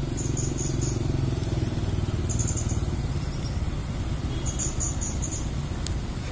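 Mercedes-Benz coach's diesel engine running low and steady as the bus moves off slowly, with a motorcycle passing close by partway through.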